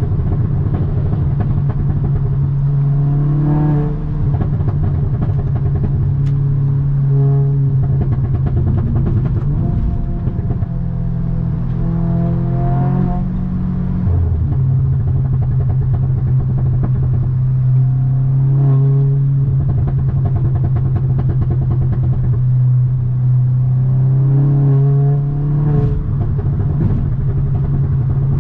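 2017 Audi S3's turbocharged 2.0-litre four-cylinder engine and exhaust under way. A steady low drone runs throughout, and the pitch rises and falls several times as it revs.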